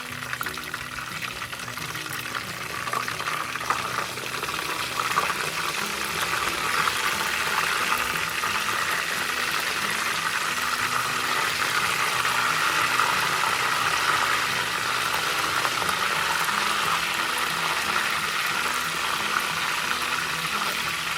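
Chicken quarter legs, just flipped, frying in oil in a pan: a steady sizzle that grows louder over the first several seconds and then holds.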